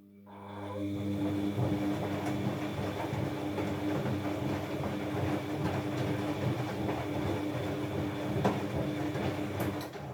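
Washing machine drum turning with a steady squeal and grinding drone that holds one pitch throughout, typical of a worn drum bearing or bearing seal, which the owner suspects.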